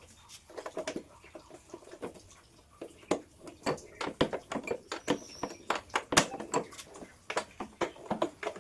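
Hands working on a motorcycle's parts, fitting its wiring connections: a string of irregular clicks and knocks, the loudest about six seconds in.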